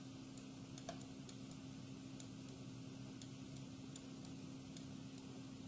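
Quiet room tone: a faint steady hum with scattered faint ticks.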